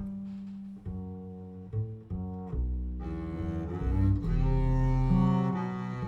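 Recorded music played back over TAD loudspeakers driven by Electrocompaniet electronics: an instrumental passage of a Spanish-language ballad with low sustained notes and a moving bass line, the accompaniment filling out about three seconds in.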